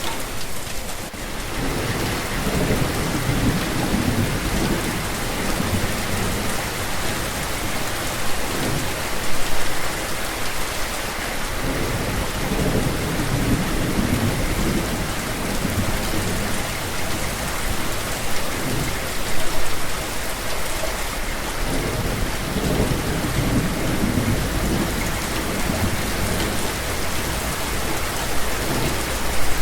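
Steady rain falling, with low rolling rumbles of thunder that swell and fade several times.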